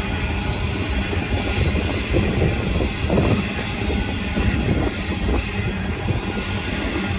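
Coal hopper wagons rolling past, their steel wheels on the rails making a steady rumble. The wheel noise swells briefly about three seconds in and again around five seconds.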